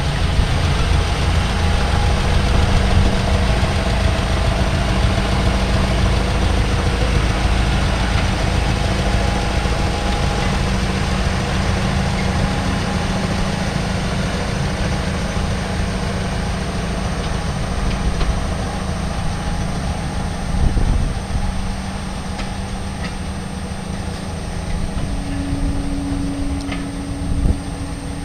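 Small diesel shunting locomotive's engine running steadily as it hauls a four-wheeled coach slowly past, easing off a little as the coach rolls by, with a thump and a few knocks near the end.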